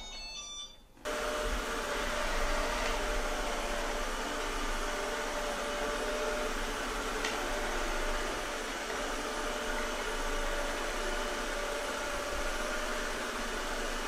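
Shark ION robot vacuum running across a hardwood floor: a steady whir with a constant hum-tone, starting about a second in, as it drives back toward its charging dock.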